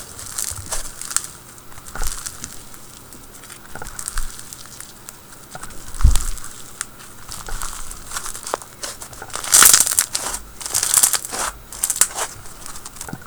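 White glue floam slime packed with micro and large foam beads being squeezed and worked by hand, giving irregular crackling and clicking as the beads pop and rub. Louder clusters of crackling come about ten and eleven seconds in, with a single dull thump near the middle.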